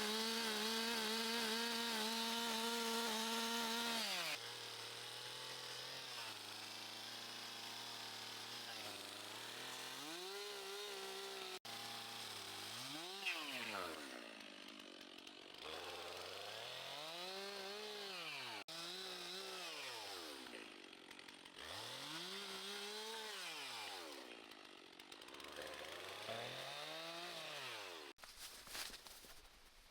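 Small two-stroke engine running flat out, then dropping to a lower speed and being revved up and down again and again, about every three seconds. It breaks off sharply a few times, and near the end a scratchy rustling takes over.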